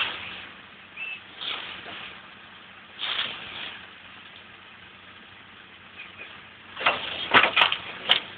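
IHC 1455 tractor's diesel engine running steadily while pulling a CLAAS Rollant 255 round baler at work, heard from a distance as a low hum. Loud rushing bursts break in about every second or two, and a cluster of them with a few sharp clicks comes near the end.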